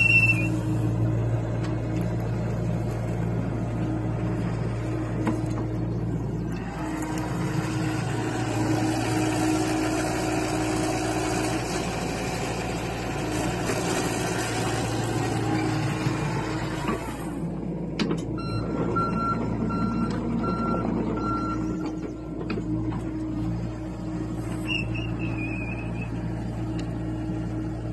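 John Deere compact excavator's diesel engine running under hydraulic load as the boom and bucket dig and move dirt, working harder through the middle. A travel alarm beeps in a short, even series for a few seconds about two-thirds of the way through.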